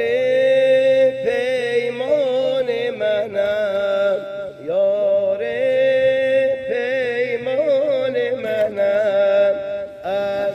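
A man singing a Persian song unaccompanied in a high, drawn-out voice. Long held notes are decorated with rapid warbling trills, over a steady low drone, and there is a short breath break about halfway through.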